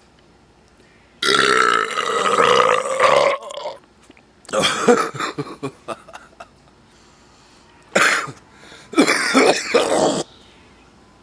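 A man belching after gulping malt liquor, a nasty one: one long drawn-out belch with a wavering pitch, then three shorter belches.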